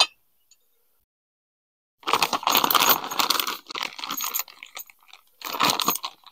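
Small metal hardware (bolts and washers) clinking together while a plastic parts bag crinkles as it is handled. It starts about two seconds in, pauses briefly, and picks up again near the end.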